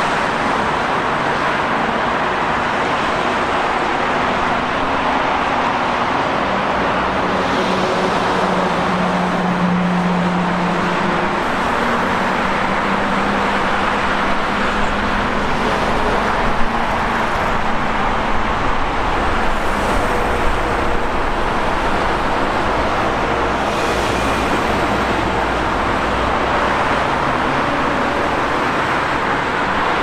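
Steady motorway traffic noise: a continuous rush of cars and trucks passing at speed. A low engine drone stands out for a few seconds around ten seconds in.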